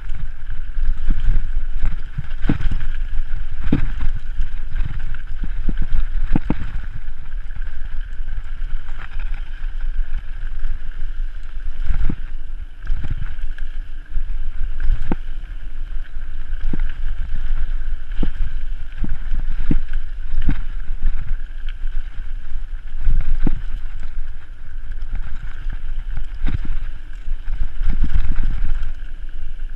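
Wind rushing over the microphone of a camera on a mountain bike descending a dirt trail, with a low rumble. The bike knocks and rattles over bumps and roots many times.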